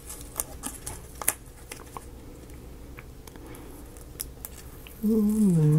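Scattered light clicks and ticks from tiny paper pages of a miniature book being separated and folded by hand. Near the end comes a louder hummed 'hmm' from a man, falling in pitch.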